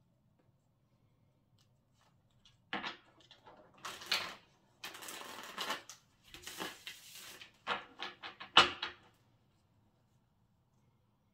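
A deck of tarot cards shuffled by hand: after a quiet start, a run of card clicks and rustling riffles, with a sharp snap near the end.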